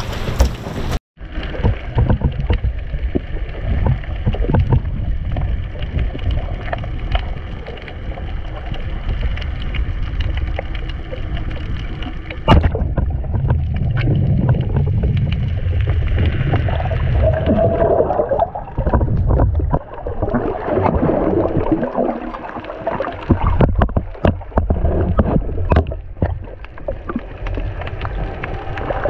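Underwater sound picked up by a diver's camera while spearfishing: a steady, muffled low rush of water, with scattered small clicks and gurgles and one sharp knock about twelve seconds in.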